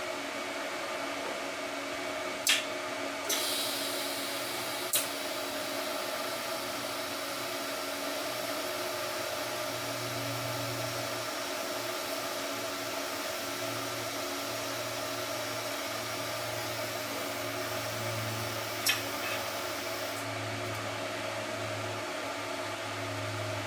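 Shop welder running with a steady hum and fan hiss while a small tab and screw are tack-welded. A higher hiss starts with a click a few seconds in and stops near the end, with a few more sharp clicks along the way.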